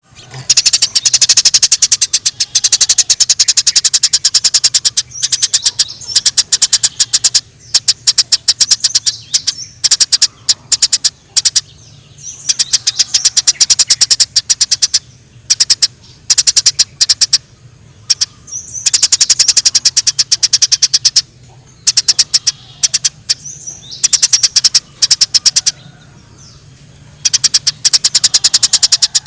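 Eurasian tree sparrow (burung gereja) chattering in its excited fighting call: loud runs of rapid, sharp chirps, many a second, each run lasting a few seconds and broken by short pauses.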